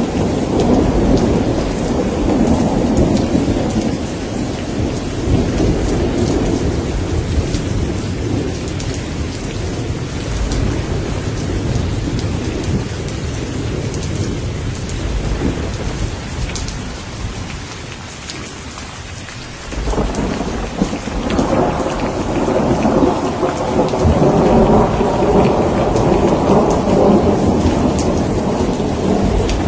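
Heavy rain falling steadily, with rolling thunder. The rumble dies away about two-thirds of the way through, then a new roll of thunder breaks in suddenly and swells loud.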